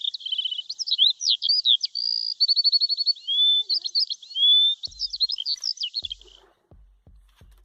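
A songbird singing a fast, varied string of chirps, trills and whistles that stops about six seconds in. A few soft, low thumps come in over the last few seconds.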